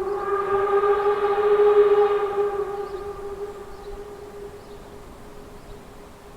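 A narrow-gauge locomotive's whistle sounding one long, steady blast, loudest for the first two seconds or so and then slowly dying away over the next few seconds.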